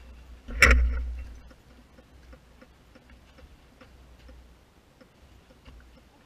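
A heavy knock less than a second in as the fallen dirt bike is wrestled upright, with a short low rumble after it, then faint, evenly spaced ticking.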